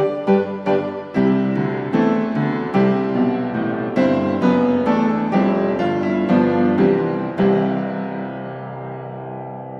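Background piano music: quick notes at first, then slower chords, ending on a held chord that fades away near the end.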